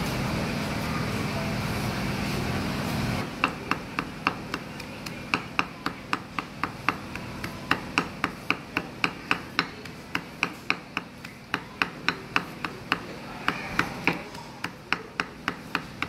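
A heavy cleaver chopping dried red chilies on a thick wooden chopping block: rapid, even chops at about three to four a second, starting about three seconds in. Before that there is only a steady background hum.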